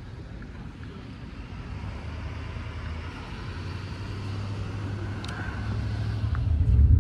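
City street traffic: a motor vehicle's low rumble and tyre hiss, swelling over several seconds as it passes, then a louder low rumble near the end.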